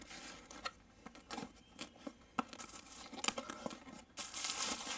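Product packaging being opened and handled: scattered tearing and rustling with small clicks, then a louder, denser rustle near the end.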